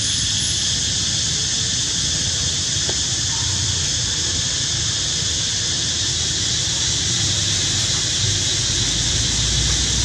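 Steady high-pitched drone of forest insects, with a low rumble underneath that swells slightly near the end.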